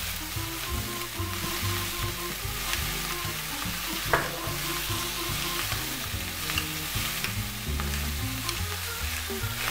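Sliced spring onion and green pepper sizzling in oil in a non-stick wok over high heat, a steady frying hiss. A single sharp click about four seconds in.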